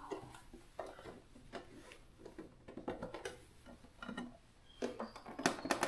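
Irregular small clicks and taps of a screwdriver and plastic parts being handled while the retaining screw of a Samsung refrigerator ice maker controller is worked out, with a quick run of clicks near the end.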